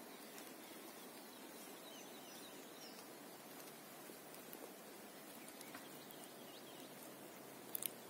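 Quiet pine-forest ambience: a faint steady hiss with a few faint, distant bird chirps, and two sharp clicks just before the end.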